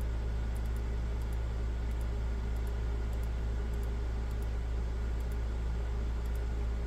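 Faint, quick computer mouse clicks, roughly two a second, as spreadsheet rows are selected one by one, over a steady low hum.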